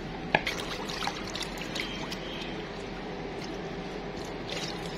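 Chunks of fatty beef being washed by hand in water: trickling and splashing water with a few sharp knocks, the loudest just after the start.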